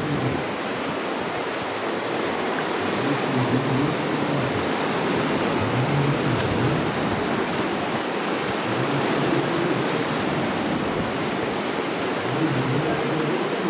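Whitewater rapids of an artificial slalom course rushing steadily.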